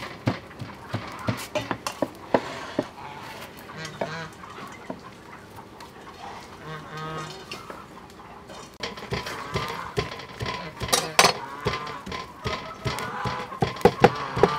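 Domestic fowl calling again and again, louder in the second half, over sharp knocks and clatter from a stone mortar and pestle and metal bowls being worked.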